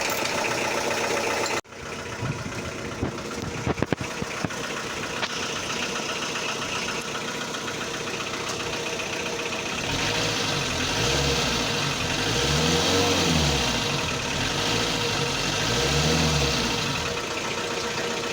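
Motorhome engine idling through its newly fitted exhaust, with a few sharp clicks early on. It is then revved up and back down twice in the second half.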